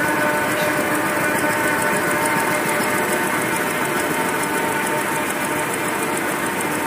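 Two-line automatic V-fold facial tissue machine running steadily: an even mechanical hum with several steady tones and a fast, regular ticking.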